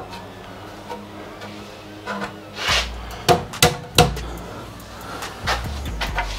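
Tulipwood door top rail being knocked down by hand onto its domino floating tenons in a trial fit: four sharp wooden knocks close together from a little under three seconds in, then softer taps near the end.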